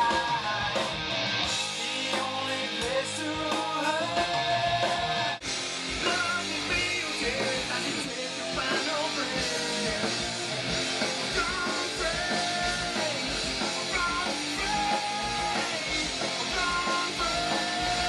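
Stoner rock music with electric guitar and a sung vocal line. It breaks off abruptly about five seconds in and starts again.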